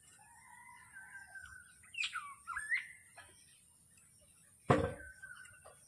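Birds calling: a few short whistled calls that slide up and down in pitch, and one sharp knock a little before the end.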